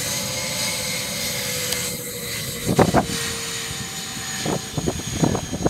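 Learjet 45's twin Honeywell TFE731 turbofan engines running at taxi power, a steady roar with a thin whine, as the jet rolls away. About three seconds in, and again near the end, irregular buffeting thumps hit the microphone.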